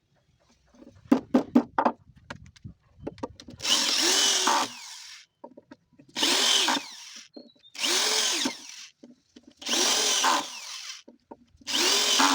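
Electric drill running on wood in five short bursts about two seconds apart, each spinning up and winding down. Several sharp knocks come just before the first burst.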